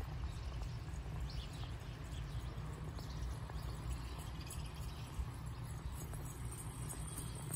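Quiet outdoor ambience: a steady low rumble with a few faint, short bird chirps.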